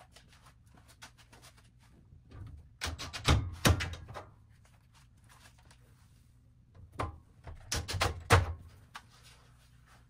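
Two short bursts of knocks and clicks as a cordless drill and screws are handled against the washing machine's sheet-metal cabinet, one about three seconds in and another about seven to eight seconds in.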